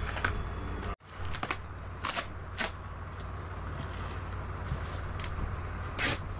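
Packaging being handled while a cardboard carton of tractor spare parts is opened: short crinkling, scraping rustles of cardboard and plastic parts packets, a couple about two seconds in and one near the end, over a steady low hum.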